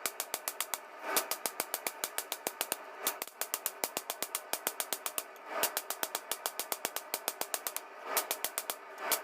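Steel being hammered on the leaf-spring blank in a fast, very even run of blows, about seven a second.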